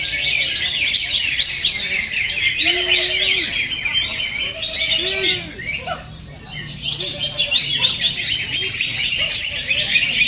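Several cucak ijo (green leafbirds) singing at once: dense, rapid, high chattering song with lower rounded calls mixed in. The song breaks off for about a second a little past the middle, then comes back.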